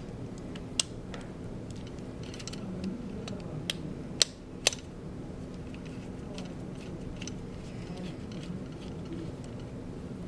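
Small screwdriver backing tiny screws out of the underside of a Contour ROAM action camera: faint scraping with a few sharp clicks, over a steady low hum.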